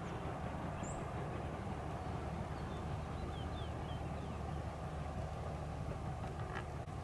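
Boeing 737 jet engines running at taxi power as the jet turns onto the runway and lines up, heard from afar as a steady low rumble. A few faint bird chirps come early on.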